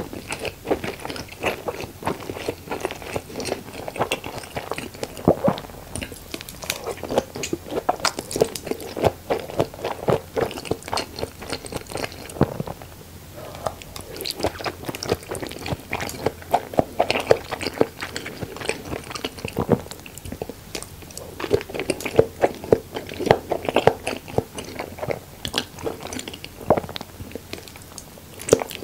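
Close-miked chewing of big mouthfuls of salmon nigiri sushi: many small mouth clicks, coming in bouts with brief lulls.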